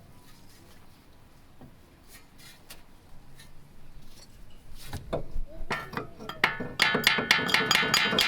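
Metal hand tools working on a stuck suspension end link: a few light clicks, then from about five seconds in a quick run of sharp metallic clicks and clinks with a ringing tone.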